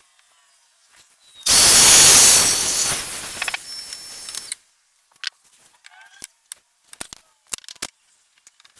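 Domino joiner running for a plunge cut: the motor starts abruptly with a loud rushing whir, fades after about two seconds and cuts off about three seconds after it started. Light clicks and knocks follow, from the tool and the workpieces being handled.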